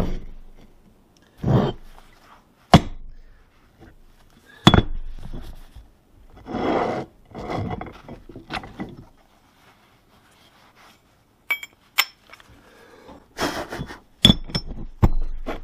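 Sharp metal clinks and knocks, scattered irregularly, as the parts of a hot steel core-box die for shell sand cores are knocked, opened and set down on a bench. A few seconds of rough scraping and rustling in the middle and again near the end.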